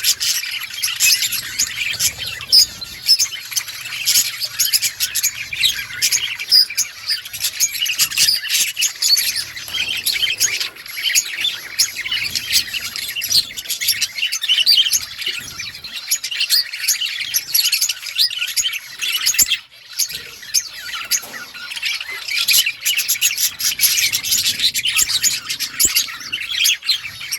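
A colony of budgerigars chirping and chattering, many birds at once in a dense, continuous flock chatter, with a brief lull about two-thirds of the way through.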